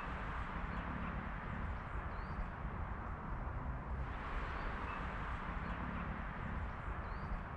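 Steady outdoor background noise with a low rumble and faint bird chirps, twice.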